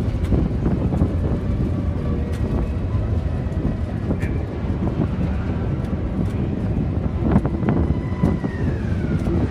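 Mobile starting gate vehicle driving along a dirt track: a steady engine-and-road rumble with scattered knocks from the metal gate. A faint high tone holds and then slides down in pitch near the end.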